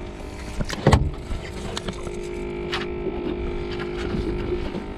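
A steady motor hum on a small fishing boat, with knocks and taps on the deck, the loudest knock about a second in.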